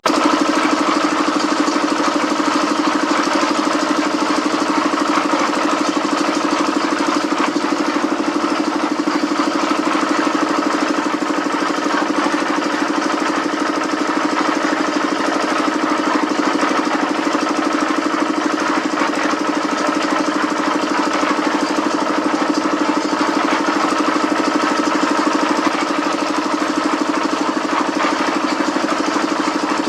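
A machine's engine running steadily, with an even mechanical drone that does not change.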